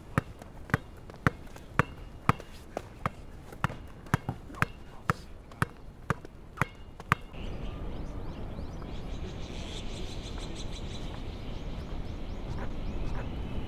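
A basketball being dribbled on a hard outdoor court: sharp bounces about two a second. They stop about seven seconds in, leaving a steady background hiss.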